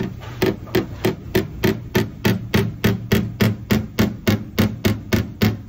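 Small body hammer tapping a car's steel body panel in a steady run of about three blows a second, working the metal around a dent held out by a stud-welding dent puller, over a low steady hum.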